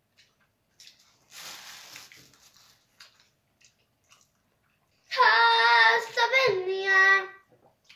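A young girl's voice singing a few high, held wordless notes about five seconds in, the pitch stepping down near the end. Before it, faint clicks and a brief soft hiss.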